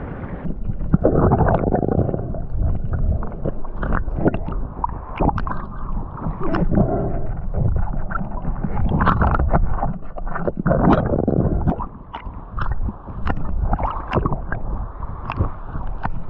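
Muffled water sloshing and gurgling around a camera in the sea, with many scattered sharp clicks and a couple of louder surges of water noise.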